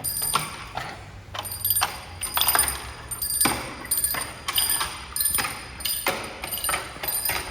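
Bells rung one after another in quick succession, about two strikes a second, each leaving a high metallic ringing that carries over into the next.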